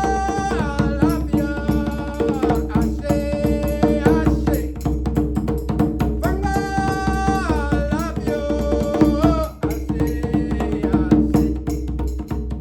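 Music: fast djembe hand drumming, dense and continuous, under a melodic line of held notes that slide down from one pitch to the next, over a steady low drone. The melody drops out for a while near the end and the drumming carries on.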